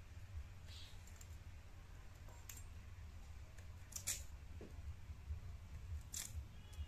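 Small tyangra fish being scraped and cut against an upright curved blade: a few short, sharp scrapes, the loudest about four seconds in, over a faint low rumble.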